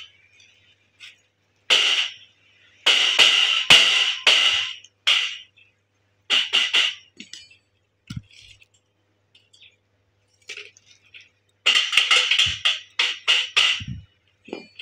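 Stick-welding arc crackling in short bursts, one tack weld after another on steel gate bars, each under a second long, in two runs with a pause between. A few dull knocks fall in the gap and near the end.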